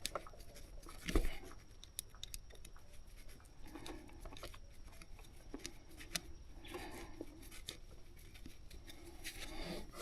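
Faint clicks and light handling noises of hands working a fuel hose and its clip onto the filter, with one louder knock about a second in.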